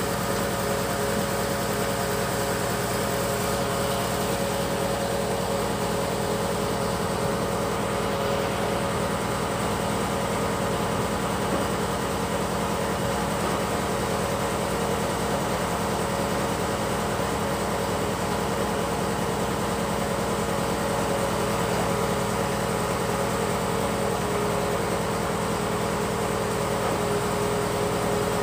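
Fish-feed pellet extruder running steadily while pushing out strands of feed: a constant mechanical hum with a steady whine, unchanging throughout.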